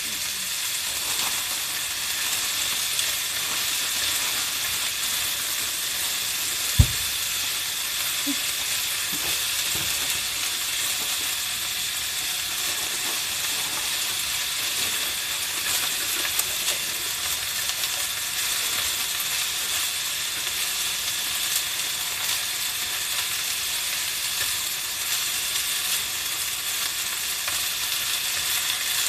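Sliced pork and bean sprouts sizzling steadily in a frying pan while being stirred with chopsticks, with one sharp knock about seven seconds in.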